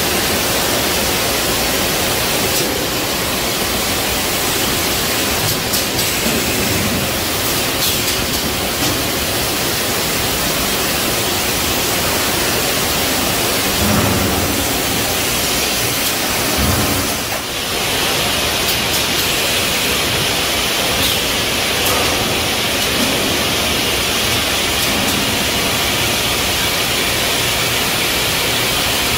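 Steady, loud hiss of factory machinery on an automated can-loading retort line, with a few faint clicks and two brief low thumps about halfway through.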